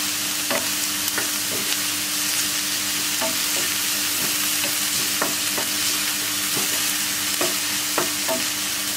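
Chopped red onions sizzling in coconut oil in a non-stick frying pan, sautéing over a low flame, with a wooden spatula scraping and tapping the pan about once or twice a second as they are stirred.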